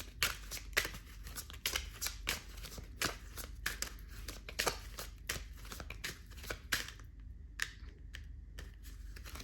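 A deck of tarot cards being shuffled by hand: repeated short papery slaps and flicks, two or three a second, thinning out near the end.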